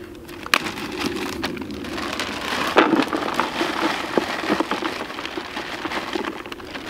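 A zip-lock bag pulled open with a few sharp clicks, then crumbed boilie and pellet bait, soaked in liquid glug, poured out of the bag into a plastic bait bucket: a dense, steady rush of falling crumbs with scattered ticks.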